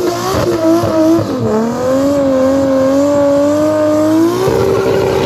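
BMW E36 M3 doing a burnout: engine held at high revs while the rear tyre spins and smokes on the tarmac. The engine note dips about a second and a half in and climbs back, then jumps to a steady higher note near the end.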